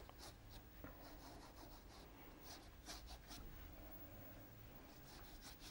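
Faint, repeated strokes of a wet watercolour wash brush across paper.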